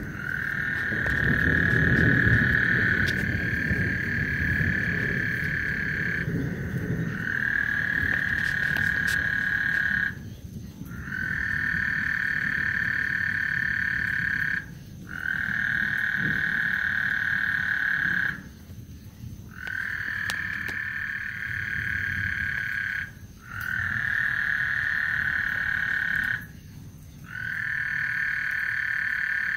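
A frog chorus of long, high trills, each lasting a few seconds, following one another with breaks of about a second. A low rumble lies under the first several seconds.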